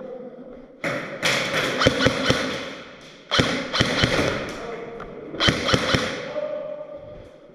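Airsoft guns firing three bursts of rapid sharp shots, each about a second long, with short pauses between.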